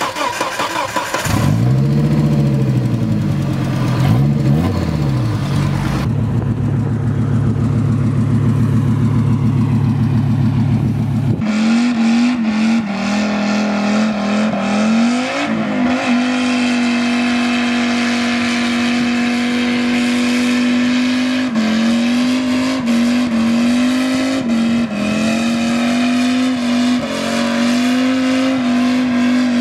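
Volvo T5 turbocharged inline-five engine in a Volvo 760 revving up and down in quick blips, then, after about eleven seconds, held at high revs with small wavers through a tyre-smoking burnout.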